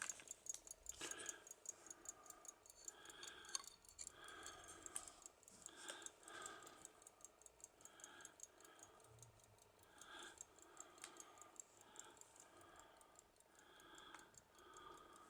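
Faint, rapid, even ticking of a pocket watch's Swiss 15-jewel lever movement, its balance wheel running.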